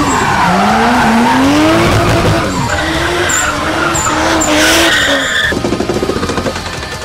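Cars drifting in donuts: the engine revs climb over the first couple of seconds and are then held high and wavering while the tyres squeal.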